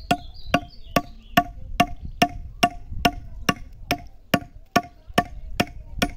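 Hammer blows working the head of a wooden ox-cart axle by hand, struck in a steady rhythm of about two and a half a second, each blow with a short ring.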